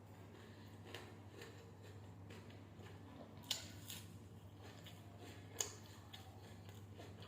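Quiet eating sounds: a few sharp clicks and taps, the loudest at about three and a half and five and a half seconds in, over a low steady hum.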